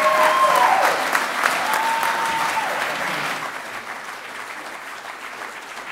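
Audience applauding, with a couple of voices whooping in the first few seconds; the clapping then thins out and fades.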